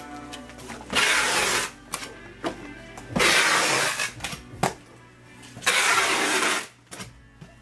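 Packing-tape dispenser pulled across cardboard boxes three times, each a loud noisy tear of tape lasting under a second, with light knocks of boxes between, over background music.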